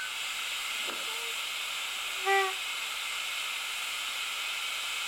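Steam hissing steadily from a miniature GWR steam locomotive standing with steam up. A short pitched toot sounds once about two seconds in.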